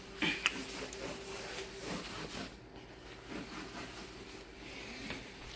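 A few light clicks and knocks of cookware and utensils being handled at the stove, the sharpest a little after the start, over a steady faint hum.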